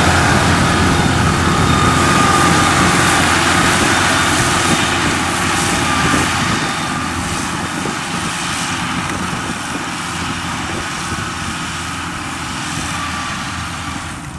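Engine of a small tracked rice-field carrier loaded with sacks of rice, running steadily as it drives off across the stubble and growing gradually fainter as it moves away.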